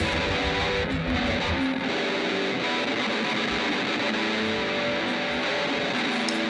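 Live electric guitar strumming and holding chords at a steady level, without drums.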